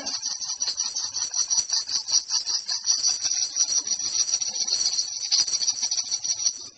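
Baby's toy shaker shaken continuously, a fast, steady, hissing rattle of many quick strokes that stops abruptly near the end.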